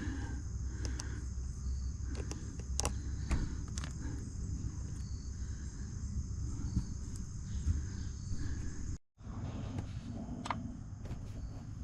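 Steady high insect chirping over a low rumble, with scattered small clicks and knocks of handling; the sound drops out completely for a moment about nine seconds in.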